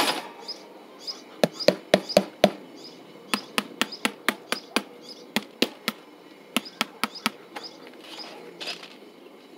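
A spoon knocking against a plastic tub of chicken feed: a run of sharp, irregular taps, several a second, pausing briefly about a second in and again near the end. Faint bird chirps underneath.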